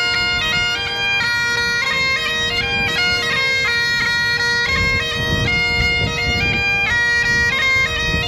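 Bagpipes playing a melody of stepping notes over a steady, unbroken drone.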